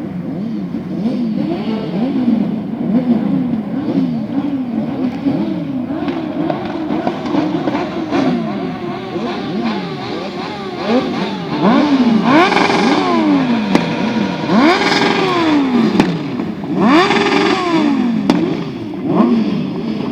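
Off-road motorcycle engines revving up and down over and over, several bikes at once, the pitch climbing and dropping about once a second. The loudest, longest revs come in the second half.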